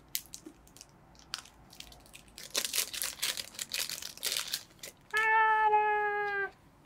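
Cellophane packaging crinkling and rustling as a small boxed item is unwrapped and opened, with light clicks of handling. Near the end comes a louder, held, slightly falling voice-like note lasting about a second and a half.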